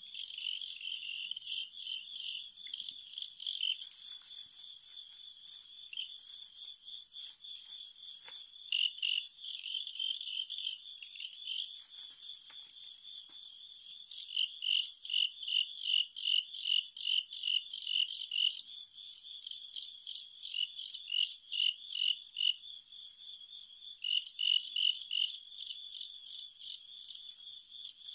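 Male crickets chirping continuously in a high, pulsing trill, with stretches of louder, evenly spaced chirps at about two or three a second. This is the rivalry chirping that male crickets make while sparring.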